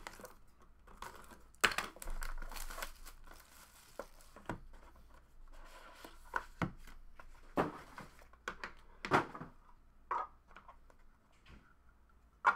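Hands opening a trading-card box and pack: cardboard and wrapper rustling and crinkling, with a stretch of tearing about two seconds in and scattered sharp taps and clicks as the cards are handled.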